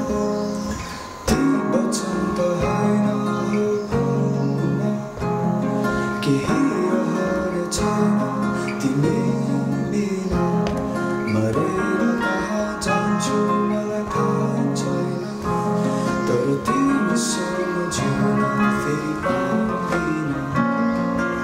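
Two acoustic guitars and an electronic keyboard playing together in an unhurried jam, the guitars plucked and strummed over keyboard chords. A male voice sings along. Near the start the playing drops briefly, then comes back in with a sharp strum.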